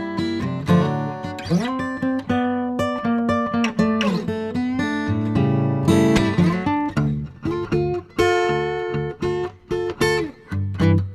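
Acoustic guitar music, strummed and picked, with sliding notes.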